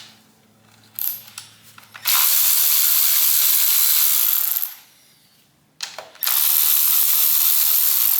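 Ratchet wrench run quickly to back out cover bolts on the engine, a few clicks and then two long steady bursts of about two and a half seconds each with a short pause between.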